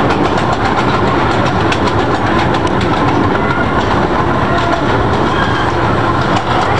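Open passenger cars of a zoo ride train running along the track: a steady running noise with many small clicks and clacks from the wheels on the rails.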